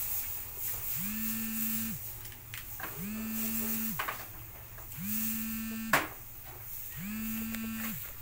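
A buzzing tone that sounds for about a second, once every two seconds, sliding up in pitch as each one starts. A sharp click comes about six seconds in.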